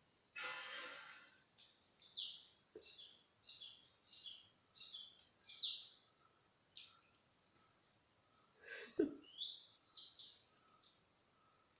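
A small bird chirping: a run of short, high-pitched chirps, several a second, with a harsher burst near the start and a lower call falling in pitch about nine seconds in.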